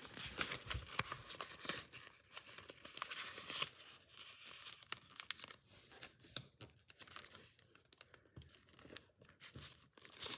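Origami paper being folded and creased by hand: rustling and crinkling with fingers sliding over the sheet, busiest in the first few seconds, then quieter with scattered sharp crackles.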